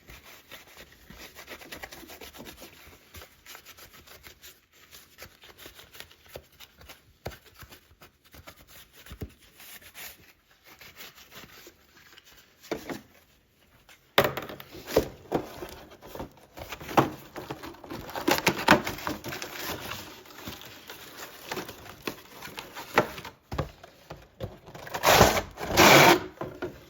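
An old rag wiping and scrubbing inside a whole-home humidifier, with irregular rubbing and scraping strokes and handling knocks. The scrubbing gets louder about halfway through, with a sharp knock near the middle and the loudest scraping near the end.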